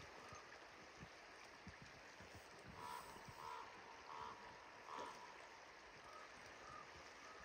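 Quiet, steady rush of an open river, with faint short calls from an animal, four in a row about half a second apart around the middle and a couple of fainter ones later.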